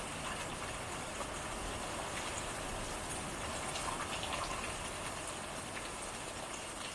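Steady rain falling on a hut's porch, a continuous hiss with scattered close drops ticking through it.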